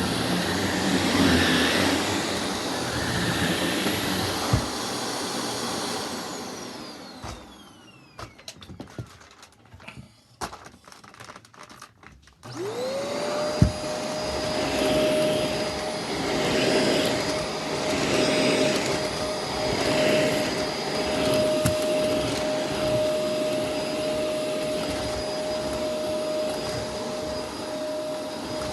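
Vacuum cleaner running, switched off about six seconds in so that its motor winds down with a falling whine, a few clicks of handling, then a vacuum cleaner switched on about halfway through, its motor spinning up into a steady whine.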